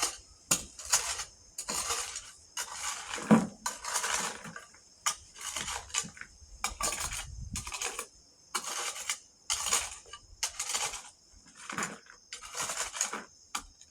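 Rhythmic gritty crunching of ballast and sand mix, about one and a half crunches a second.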